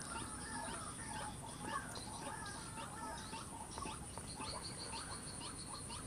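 White-breasted waterhen calling, a run of short repeated notes, over a steady high insect drone. A fast, even trill of ticks joins in during the last two seconds.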